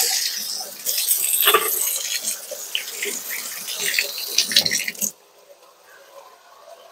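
Kitchen sink tap running while hands are washed under it, the water splashing. The tap is shut off about five seconds in and the sound stops abruptly.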